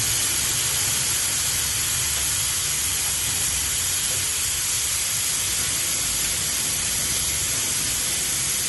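Steam wand of a KLUB two-group espresso machine open and hissing steadily, a loud, even rush of steam.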